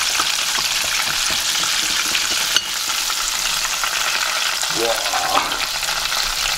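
Breaded chicken deep-frying in hot oil: a steady sizzle with dense crackling, and a single sharp click a little over two and a half seconds in.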